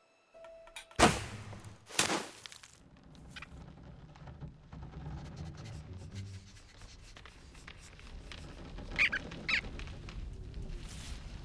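Animated-film sound effects: two sharp, loud hits about a second apart, each trailing off, then a low steady background and two short high squeaks near the end.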